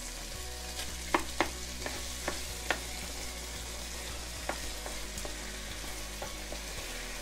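Thick coconut milk and diced butternut squash sizzling in a hot frying pan while a metal spoon stirs them, with a steady hiss. A few sharp clicks of the spoon against the pan come through, the loudest about a second in and near three seconds.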